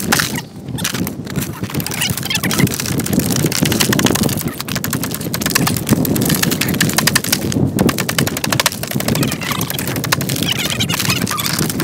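A hammer chipping and knocking at a large block of ice. The footage is sped up, so the strikes and cracking come as a fast, continuous patter of sharp knocks.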